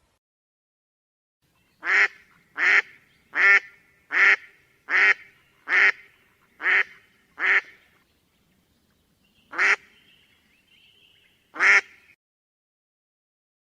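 A series of short, sharp animal calls: eight in quick, even succession, then two more spaced out after a pause.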